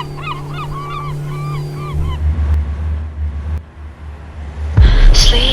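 Cinematic soundtrack. A repeating chirping melody over a steady low drone gives way about two seconds in to a deep low rumble, and a sudden loud hit comes near the end.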